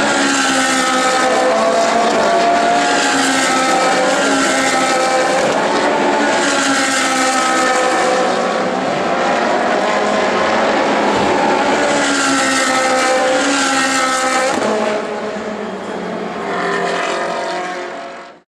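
Several Ferrari 458 Challenge race cars' 4.5-litre V8 engines running hard on track, overlapping, their pitch rising and falling through upshifts and downshifts as they pass and brake for corners. The sound fades out at the very end.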